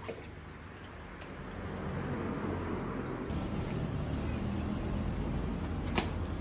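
Shallow water sloshing and rumbling as a man wades and gropes by hand in a flooded rock crevice. A steady high-pitched whine cuts off suddenly about three seconds in, and a sharp click comes near the end.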